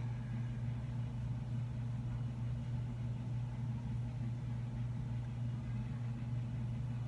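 A steady low hum at an even level, with nothing else over it.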